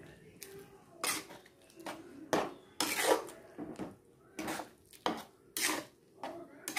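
A spoon scraping and knocking against a metal pan while stirring thin, watery pav bhaji, in about eight uneven strokes.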